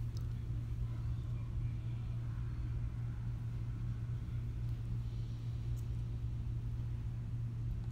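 A steady low hum over faint background noise, even throughout.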